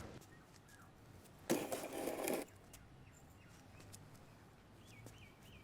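Quiet room tone with one short burst of noise, under a second long, about a second and a half in.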